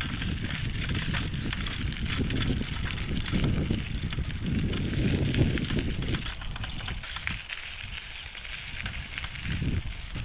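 Wind and road noise of a bicycle ride on a handheld phone's microphone: an uneven low rumble that swells and fades, with a steady hiss above it.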